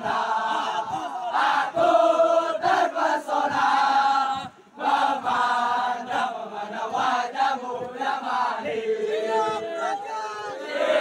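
A crowd of Indonesian Army cadets chanting in unison in a steady rhythm, with a short break about four and a half seconds in.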